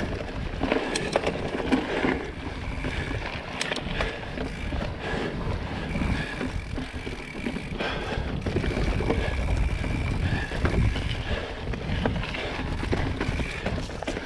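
Mountain bike riding over a rough dirt and gravel trail: tyres crunching and rolling, with scattered clicks and knocks from the bike jolting over roots and stones, and wind on the microphone.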